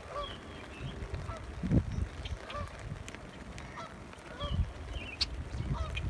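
Geese honking: short calls repeated several times. A low thump about two seconds in is the loudest sound.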